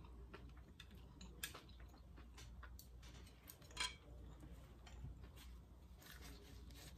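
Chopsticks clicking and tapping against a plate of food with scattered small clicks, and one louder clack just before four seconds in.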